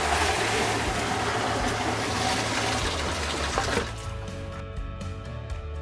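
Water poured from a five-gallon bucket into a water softener's brine tank, a steady splashing pour that stops about four seconds in. It is the first water added at start-up so the salt can dissolve into brine. Background music plays underneath and is left on its own after the pour.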